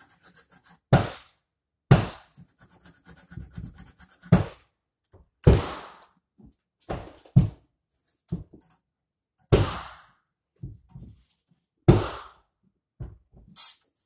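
Irregular thunks and clicks, one every second or two, from hand tools working on a refrigerator's copper refrigerant tubing.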